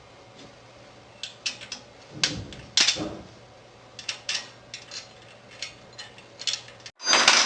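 Irregular clicks and light knocks of small metal parts being handled and fitted: an Allen key bolt, nut and washer going onto a bicycle rack bracket. Near the end the sound drops out briefly and is followed by a louder noisy burst.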